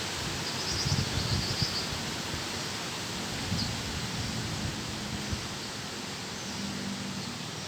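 Strong wind blowing, with gusts buffeting the microphone in irregular low thumps that ease after the first couple of seconds.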